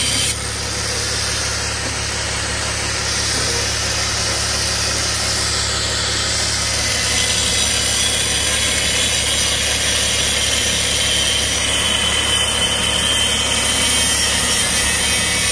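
Corded angle grinder cutting through the metal strap ratchets under a trailer rail: a steady high-pitched whine with a grinding hiss as the disc bites into the metal.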